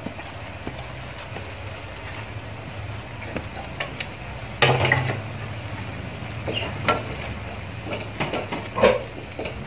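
Spiced tomato-onion curry gravy bubbling in a kadai over a steady low hum. A spatula scrapes and stirs against the pan a few times, most strongly about halfway through and again near the end.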